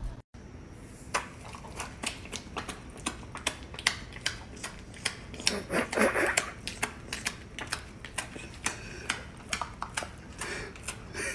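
A run of irregular light clicks and taps, a few a second, over a low background hum.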